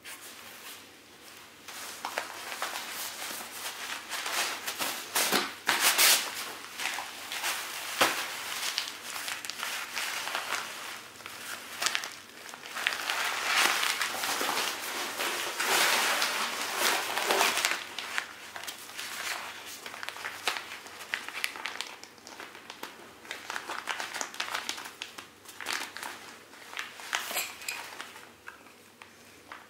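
Crinkling and rustling of a Therm-a-Rest NeoAir inflatable sleeping pad's thin nylon fabric as it is handled and unrolled, irregular and loudest in the middle.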